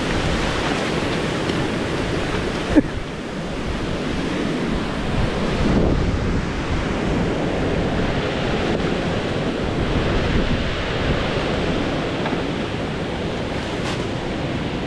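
Steady rush of a river's foaming current over rocks, with wind on the microphone; one sharp knock about three seconds in.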